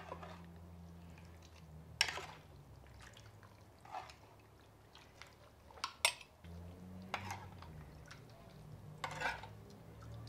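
Soaked dried chiles being scooped with a silicone spatula from a clay bowl into a glass blender jar: wet squelching and dripping, with a few sharp taps of the spatula against the jar and bowl, the clearest about two, six and nine seconds in.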